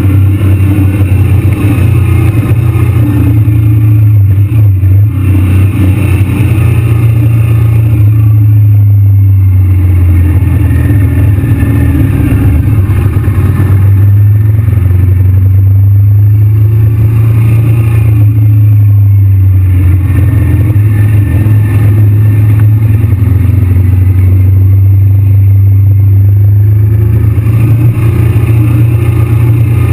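Motorcycle running at road speed, with loud, steady low rumble from the engine and wind on the microphone throughout.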